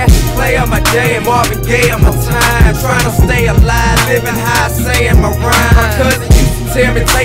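Hip hop music with a heavy, regular bass beat and a melodic line over it.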